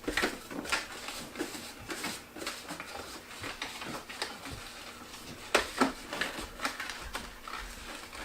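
Latex twisting balloon squeaking and rubbing under the hands as it is twisted and shaped: a run of short, irregular squeaks, with two louder ones a little past the middle.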